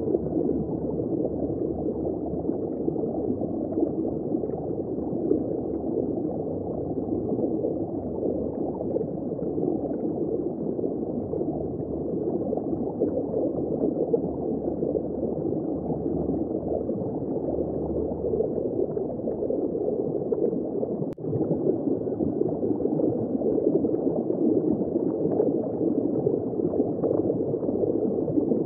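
Underwater ambience: a steady, muffled wash of moving water with no high end, dipping briefly about two-thirds of the way through.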